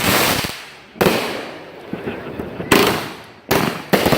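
Fireworks going off: a run of sharp bangs about a second apart, each dying away over half a second or so.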